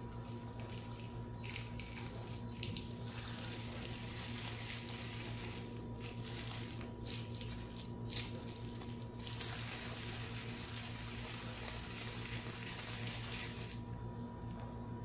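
Gloved hands kneading raw minced meat in a bowl and rolling it into balls between the palms: wet squishing and plastic disposable gloves rubbing and crinkling, in two long stretches of hiss with short rustles between them, over a steady low hum.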